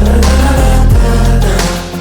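Rap backing music without vocals: deep sustained bass notes under a beat, with a bass hit sliding down in pitch right at the start.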